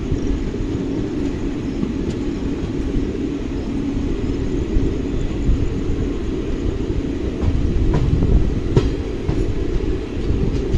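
Passenger train coaches rumbling along the track, heard from on board at an open door, with a few sharp clacks of wheels over rail joints from about seven seconds in.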